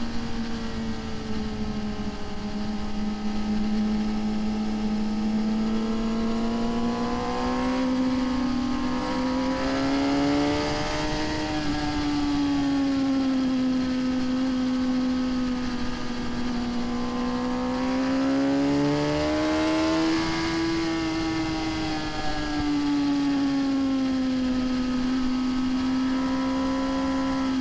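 Sport motorcycle engine running at high revs under throttle, its note rising and falling gently with no sharp shifts, peaking twice: about a third of the way in and about three quarters in. A steady rush of wind noise lies under the engine.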